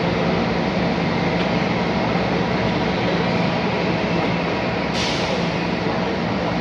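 Steady drone of diesel railway engines running, a low hum with a few steady tones that holds level throughout. A short hiss comes about five seconds in.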